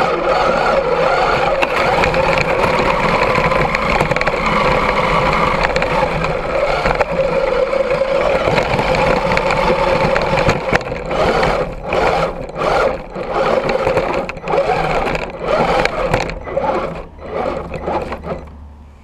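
Axial SCX10 II RC crawler's electric motor and gear drivetrain whining steadily under throttle, heard from a camera mounted on the truck. About halfway through it turns into short stop-start bursts of throttle, dying away near the end.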